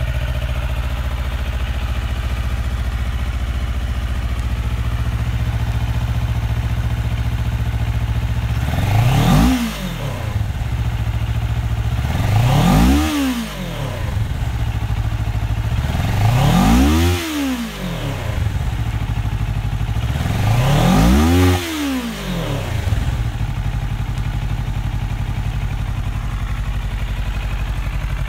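2014 Kawasaki Ninja 650's parallel-twin engine idling steadily, blipped four times about four seconds apart, each rev rising quickly and falling back to idle.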